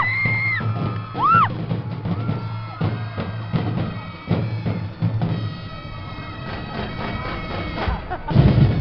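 Live festival dance music from a drum and percussion band: drums struck in a steady driving pattern over a low drone and held high tones, with sliding high notes in the first second and a half. A loud burst of noise comes near the end.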